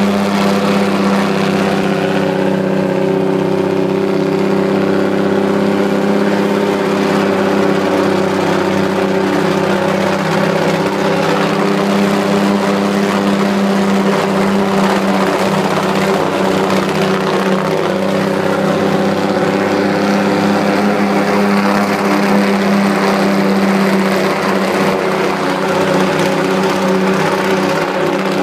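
Logging truck's diesel engine running at a steady, unchanging pitch, heard from inside the cab.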